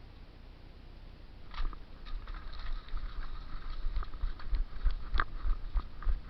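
Crunching footsteps on the ground that start about a second and a half in and quicken. Low bumps and rumble from the body-worn camera's microphone come with them.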